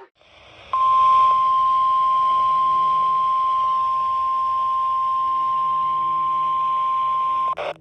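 NOAA Weather Radio's 1050 Hz warning alarm tone, sounded as the weekly alarm test: one steady high-pitched beep that starts just under a second in, holds for about seven seconds and cuts off suddenly, with faint radio hiss beneath it.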